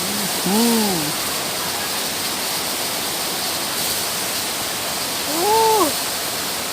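Steady rushing of a waterfall, with a person's voice making two short rising-and-falling hums, one about half a second in and one near the end.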